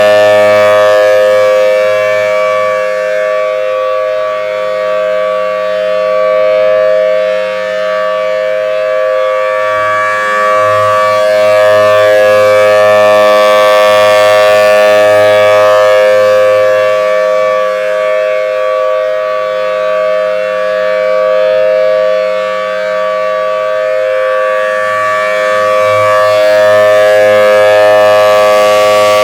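Federal Signal Thunderbolt 1000T Series B outdoor warning siren sounding the steady alert tone, a held chord at one pitch. Its loudness swells and fades roughly every thirteen seconds as the rotating horn sweeps toward and away.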